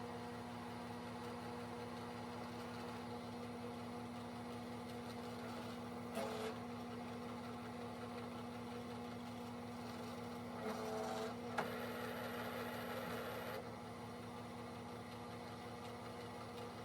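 Drill press motor running with a steady hum, with two short scraping knocks, one about six seconds in and one about eleven seconds in.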